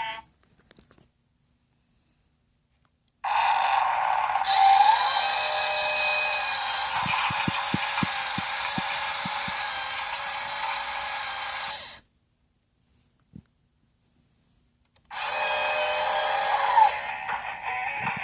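Toy power tool's electronic motor sound effect: a steady whirring sound plays for several seconds, cuts off, and starts again near the end, with a run of light clicks partway through the first run.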